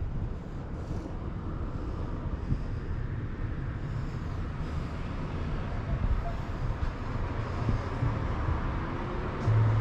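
Outdoor street ambience: a steady low rumble of road traffic, with a louder low hum coming in just before the end.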